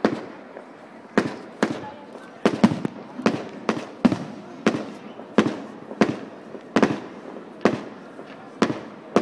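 Fireworks display: aerial shells bursting in a rapid, uneven series of sharp bangs, about one to two a second, each trailing off in an echo.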